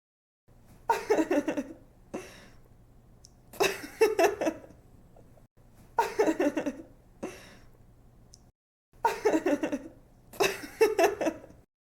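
A young woman laughing in five giggly bouts of quick 'ha-ha' pulses, with short breaths in between. The laughing starts about half a second in and stops shortly before the end.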